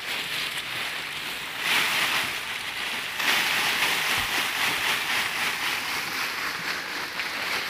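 Dry leaf bedding in a cricket-rearing box rustling as hands dig through it to shake out the crickets at harvest. The rustle grows louder briefly about a second and a half in, then again from about three seconds in.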